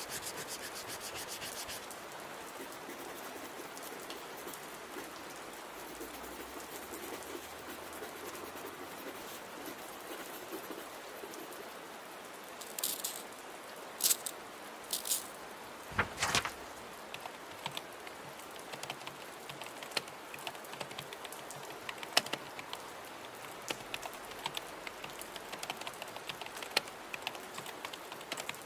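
Steady rain, with pen-on-paper handwriting scratches over it. About halfway through come a few quick rustles of paper and a single soft thump, followed by scattered light keyboard typing clicks.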